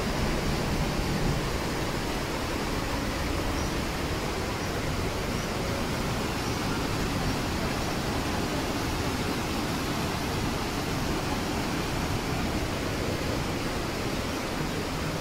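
Steady rush of a mountain stream and small waterfall: an even hiss of running water.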